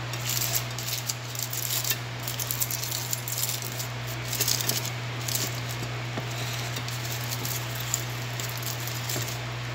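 Aluminium foil crinkling and rustling as fingers pick at the foil wrapped around a piece of grilled salmon, in short crackly bursts for the first five or six seconds, then quieter. A steady low hum runs underneath.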